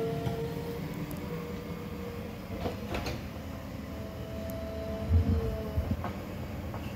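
A JCB 3DX backhoe loader's diesel engine running under digging load, with a steady whine that comes and goes. There are a few knocks, the loudest a low thump about five seconds in.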